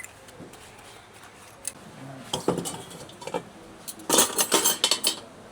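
Dishes and cutlery clinking and clattering as they are handled after washing, with a scattered few clinks, then a louder run of clatter about four seconds in.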